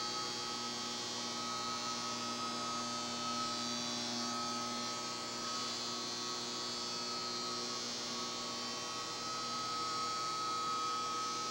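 Steady electrical hum with several fixed tones over a constant hiss: the room tone of a telecom equipment room full of running power and switching gear.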